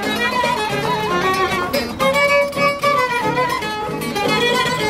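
Folk band music: a violin playing a lively melody with vibrato over acoustic guitar accompaniment.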